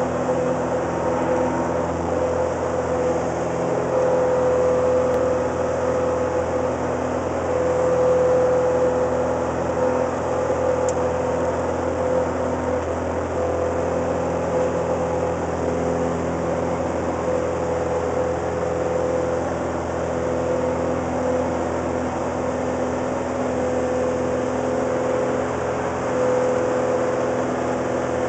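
Cessna 185's air-cooled six-cylinder engine and propeller running steadily in flight, heard from inside the cabin as a constant hum with slight swells in level.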